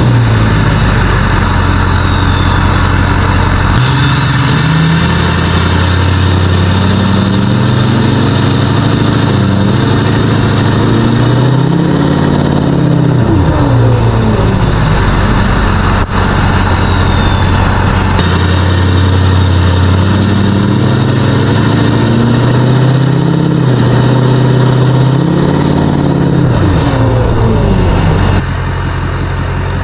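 Diesel truck driving and accelerating, the engine pitch climbing then dropping at each of several gear changes, with a high turbo whistle rising under throttle and falling as it lets off.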